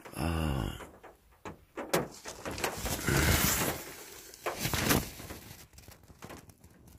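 A brief low vocal sound at the start, then scattered knocks, clicks and a rustle of someone moving about and handling things inside a small van.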